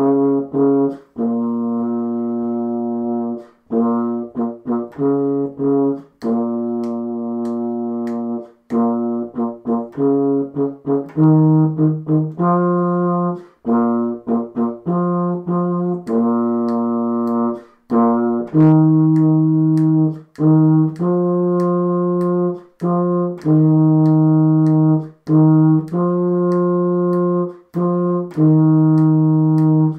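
Solo euphonium playing a beginner band part at a steady tempo: groups of short, detached notes alternating with notes held for about two seconds, with brief rests between phrases.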